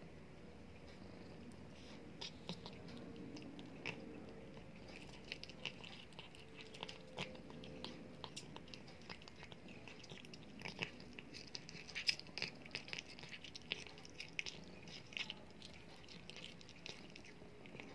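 A cat chewing and crunching a baby lizard: a steady run of small, sharp crunching clicks, sparse at first and thickest through the middle.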